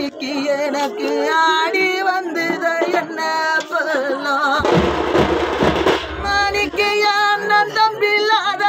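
A man singing an oppari, a Tamil funeral lament, in a wailing voice that bends and wavers in pitch. About halfway through, a loud burst of drum rolls breaks in for a second or so, then the singing goes on alone.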